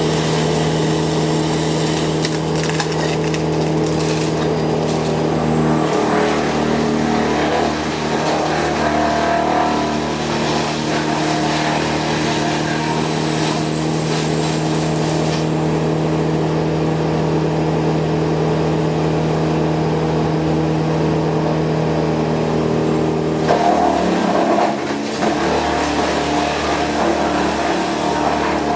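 An engine running steadily at a constant speed, with a brief dip in its note about three-quarters of the way through before it settles back.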